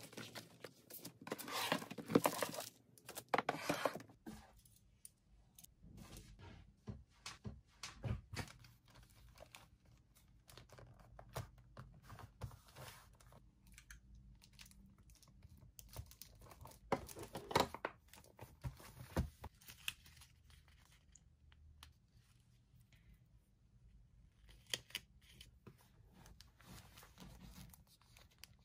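Gift wrap and packaging being handled: paper and plastic rustling, crinkling and tearing in scattered bursts, with quieter stretches between.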